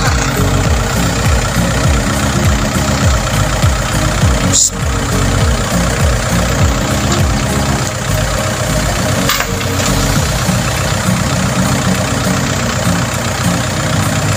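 Compact farm tractor's engine running steadily while the tractor sits bogged down in a deep, flooded, muddy canal.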